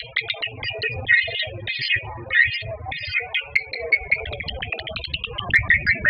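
Swiftlet lure recording: a dense, fast chatter of edible-nest swiftlet chirps and twitters, the call played from a swiftlet house to draw the birds in to roost and nest.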